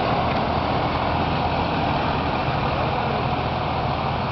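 Diesel engine of a Mercedes-Benz Arocs 3242 lorry running with a steady low rumble.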